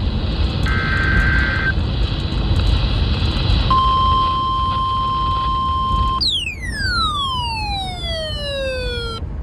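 Emergency Alert System broadcast on NOAA Weather Radio: the last of the SAME header data bursts, a short screechy warble, about a second in, then the steady 1050 Hz weather-radio alert tone. About six seconds in the tone breaks into a falling pitch sweep with many overtones gliding down for about three seconds, and the steady alert tone comes back near the end, all over a constant radio hiss and rumble.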